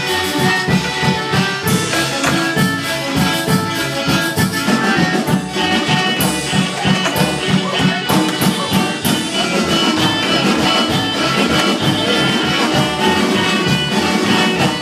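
Loud dance music with a steady beat.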